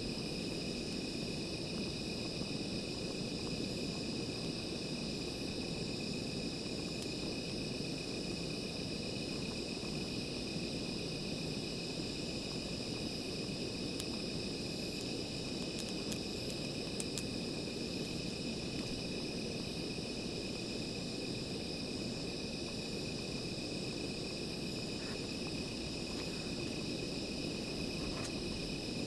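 Steady chorus of night insects, crickets by the sound of it, trilling without pause at two high pitches, over a low rushing background noise, with a few faint ticks around the middle.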